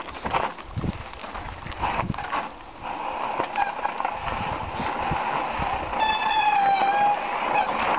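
Mountain bike brakes squealing under hard braking on a rough downhill, a steady high-pitched whine that builds from about three seconds in and is loudest near the end, over the rattle and knocks of the bike on the rocky trail. The rider takes this squeal as the sign of burnt brake pads.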